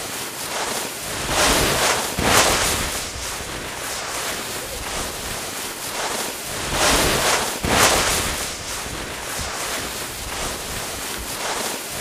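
Rain ambience from a cozy-cabin rain video playing on a TV: a steady rushing hiss of heavy rain that swells louder twice, around two seconds in and again around seven seconds in.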